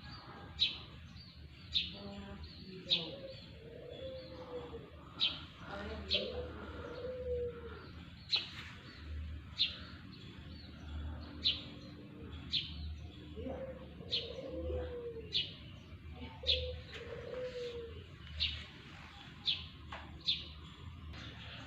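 Birds calling: a sharp, high chirp repeats roughly once a second. At times it is joined by lower, curving calls, much like a dove cooing.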